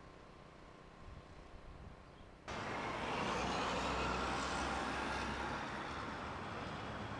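Faint quiet, then about two and a half seconds in a sudden jump to a steady engine noise with a low rumble, which swells and then eases off slightly.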